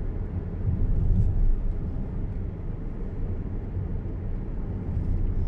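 Steady low rumble of a car driving along a road, heard from inside the cabin, swelling slightly about a second in.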